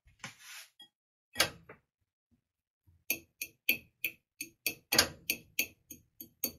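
Metal fork clicking against a ceramic dish, about three quick taps a second from about halfway in, as packet quinoa is broken up and stirred in it. Before that, a short rustle and a single knock.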